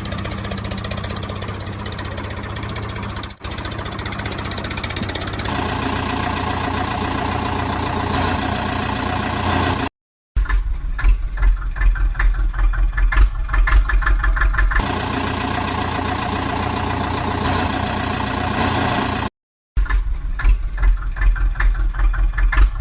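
Backhoe loader's engine running at idle, in edited segments: it cuts to dead silence twice, about ten and nineteen seconds in, and has a pulsing rhythm in the later parts.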